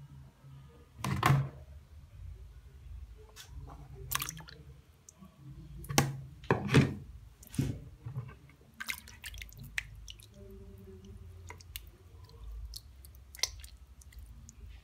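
A hand squeezing and kneading a lump of flour dough in a bowl of water, making irregular splashes and squelches as the starch is washed out to leave the gluten. The loudest splashes come about a second in and again around six to seven seconds in.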